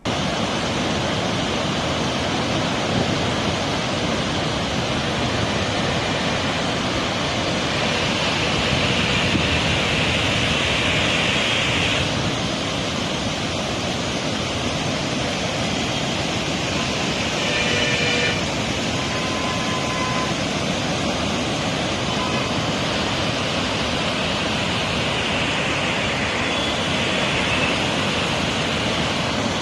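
Floodwater pouring through a dam's open spillway gates: a steady, dense rush of falling water.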